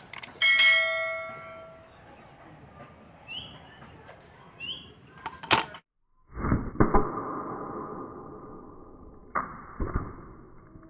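A ringing metallic ding about half a second in, a few bird chirps and a sharp snap. After a brief gap come a loud hit with a long ringing tail and two more knocks near the end, as a shot from a homemade rubber-band slingshot gun knocks a can off a stool.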